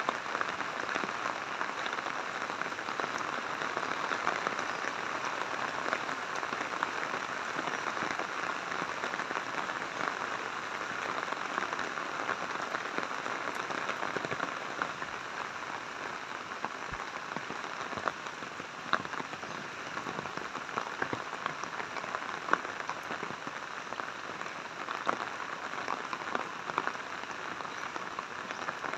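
Rain falling steadily, a continuous hiss with scattered sharp ticks, easing slightly about halfway through.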